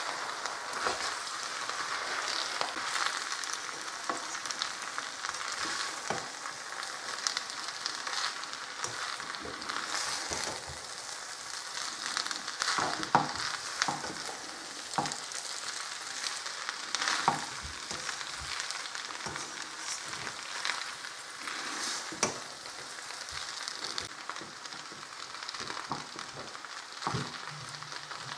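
Chicken noodle stir fry sizzling in a wok over a gas flame, with a spatula scraping and knocking against the pan at irregular moments as the noodles are tossed and mixed.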